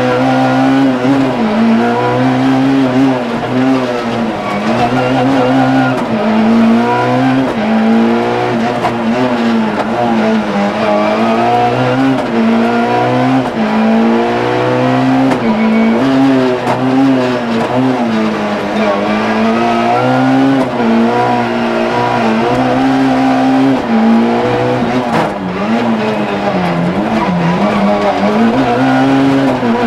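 Peugeot 106 Rally's four-cylinder petrol engine revving hard, its pitch climbing and dropping over and over as the car accelerates and lifts off around the course, heard from inside the cabin.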